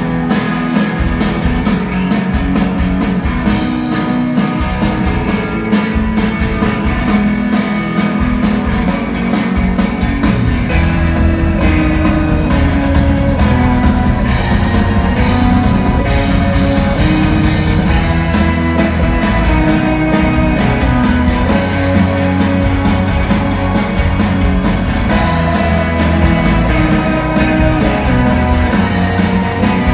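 Live rock band playing electric guitar and drum kit with a steady beat, without vocals yet.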